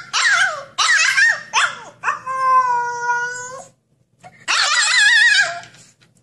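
Husky puppy howling and whining: about five high-pitched calls whose pitch wavers, with one longer, steady howl about two seconds in.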